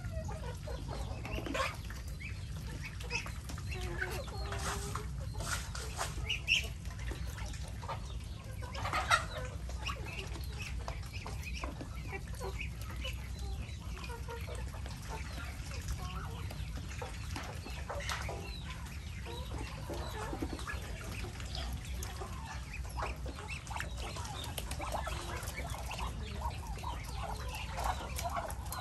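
A mixed flock of chickens and Muscovy ducks calling, with scattered clucks and short calls and two louder calls about six and nine seconds in, over a steady low rumble.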